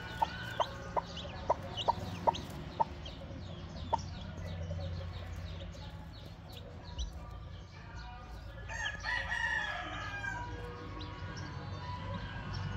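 Chicks peeping under a brooding hen, with short, high, falling chirps throughout. For the first four seconds there is a loud, rapid run of short calls, about two or three a second, and around nine seconds in a louder, drawn-out chicken call that lasts over a second.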